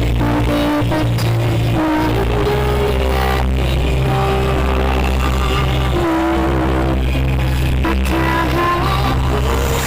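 Loud DJ-style music through a carnival sound system, with heavy bass notes and a held melody line.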